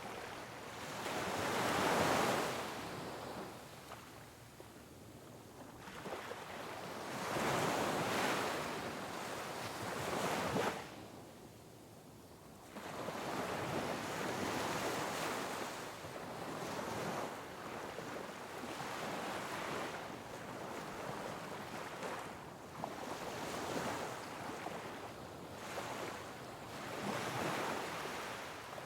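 Sea waves breaking and washing over rocks in rising and falling surges. The loudest surges come about two seconds and eight to ten seconds in; the sound cuts off into a brief lull near the middle, then returns suddenly as a steadier churning wash.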